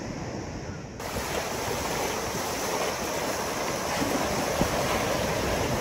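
Shallow surf washing up the beach, with wind on the microphone. The sound steps up suddenly about a second in and then runs on steadily.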